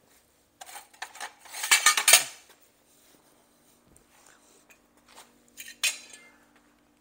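Metal clattering and clinking as hard metal pieces, such as tools or steel plate, are handled and knocked together. A quick cluster of loud clanks comes about a second in, then a single sharp clink with a short ring near the end, over a faint steady hum.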